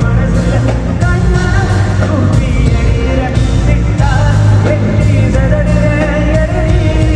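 Loud live band music from a concert PA, with a heavy bass line pulsing under melodic lines.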